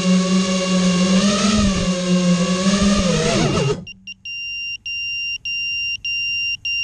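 Walkera F210 FPV quadcopter's motors and props whining, the pitch wavering with the throttle, then stopping abruptly nearly four seconds in as the quad is disarmed. A shrill electronic beep from the quad's buzzer follows, broken by short gaps about every 0.6 s.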